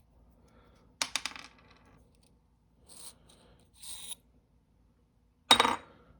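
Small metal objects clinking and clattering on a hard work surface: a quick rattle of several sharp clicks about a second in, soft rustling, then a louder clatter with a brief metallic ring near the end.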